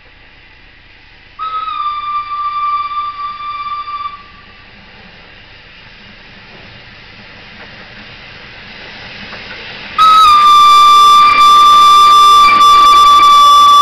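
Steam whistle of the narrow-gauge steam locomotive Hudswell Clarke 1238, blown twice with one steady note. The first blast lasts about three seconds, starting about a second and a half in. The second, much louder blast starts about ten seconds in as the engine comes alongside, with the train's running noise between the two growing steadily louder as it approaches.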